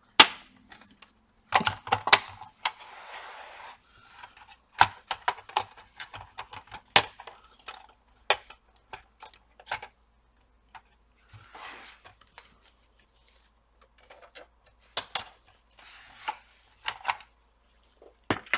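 Plastic retaining clips of a Dell Vostro 15 laptop's bottom case snapping loose with sharp clicks and cracks at irregular intervals as the case is pried apart with an opening tool, with plastic scraping and rubbing between the snaps.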